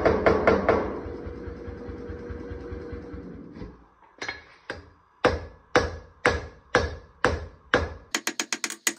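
Power hammer pounding hot wootz steel in quick strokes, its running noise dying away after about a second. Then a hand hammer strikes the glowing blade on the anvil, about two ringing blows a second, and a much faster run of sharp strikes comes near the end.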